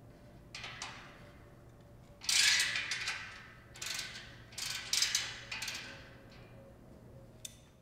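Ratchet podger spanner clicking as it tightens the nut on the bolt that joins two steel stage deck frames, in several short bursts, the loudest about two seconds in.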